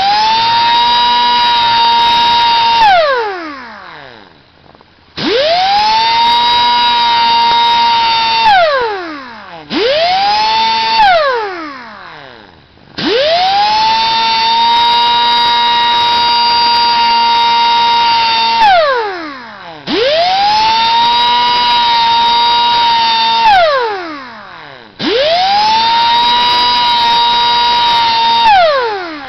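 Small high-speed rotary grinder grinding down the rakers (depth gauges) of a saw chain: it spins up quickly to a steady high whine, runs for a few seconds, then winds down, six times in a row.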